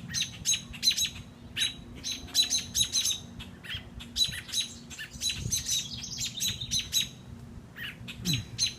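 Several small birds chirping rapidly, short sharp calls two or three a second, overlapping. This is the agitated calling of adult birds around a caught baby bird.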